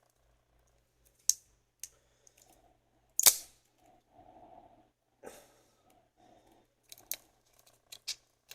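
Plastic shell holding the six cells of a 9-volt battery being prised apart by hand: a series of sharp plastic clicks and snaps, the loudest about three seconds in, with soft rustling between and a quick run of clicks near the end.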